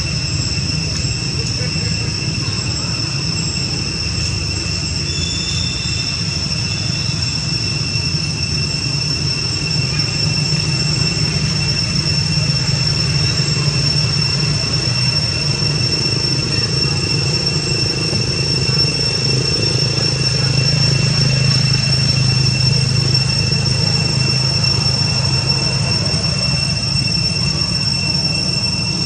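Cicadas droning in one unbroken high-pitched tone, over a low steady rumble.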